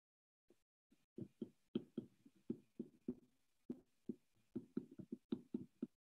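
Stylus tapping and ticking on an iPad's glass screen while handwriting: a quick, uneven run of faint taps starting about a second in.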